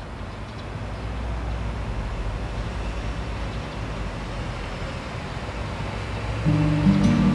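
City traffic ambience, a steady low rumble of road noise that swells over the first couple of seconds. About six and a half seconds in, sustained low musical notes come in over it.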